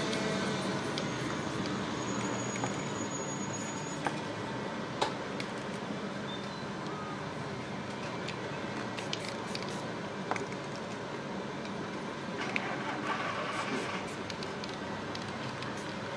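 Busy street ambience: steady traffic noise with faint voices, broken by a few sharp clicks.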